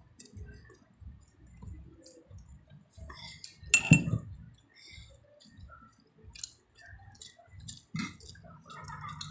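A person eating by hand: soft chewing, with small clinks and ticks against a plate and dishes. A louder knock comes about four seconds in.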